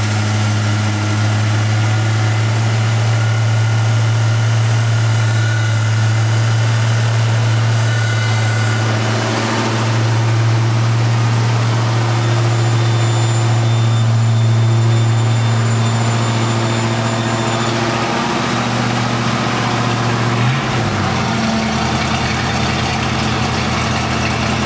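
1969 Mercury Cougar's V8 engine idling steadily, with a brief wobble in its pitch about twenty seconds in.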